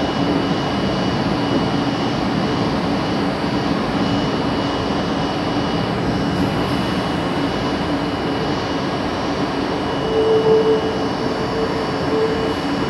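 R32 subway car running on elevated track, heard from inside the front of the car: a steady rumble of wheels on rail with a low hum, joined about ten seconds in by a higher tone that comes and goes.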